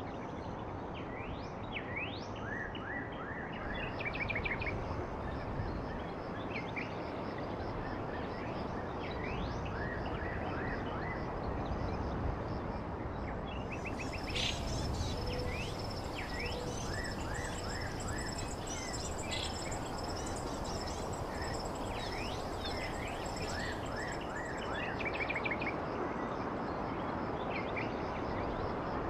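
Small birds chirping over a steady background noise: many short rising calls and quick trills, scattered all the way through. A high, thin steady whine joins in about halfway and stops a few seconds before the end.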